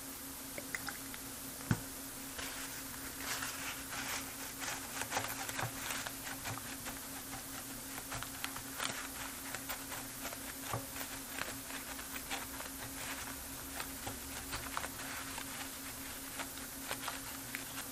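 A paper towel wiping and dabbing the wet solder side of a circuit board to dry it after a tap-water rinse: faint, irregular rustling and scratchy rubbing, with one sharper click about two seconds in. A steady low hum runs underneath.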